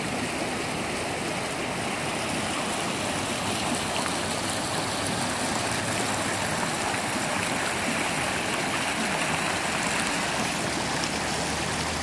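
Floodwater of the Big Thompson River rushing steadily as it pours over the top of the riverbank.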